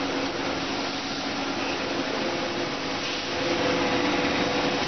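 Steady running noise of an automated cookware production line's machinery: a continuous hiss with a low hum, and no distinct strikes or impacts.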